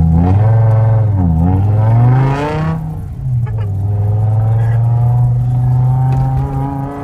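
BMW M5 E60's V10 accelerating hard, heard from inside the cabin. The revs climb and drop back sharply twice, about a second in and near three seconds, as it changes up, then pull steadily upward again.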